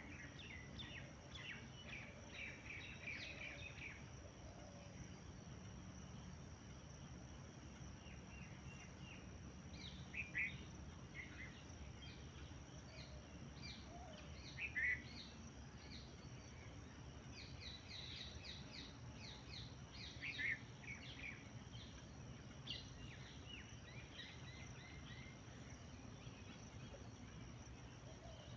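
Birds chirping in quick bursts of short, high chirps, with gaps between the bursts, over a steady thin high tone and a faint low rumble.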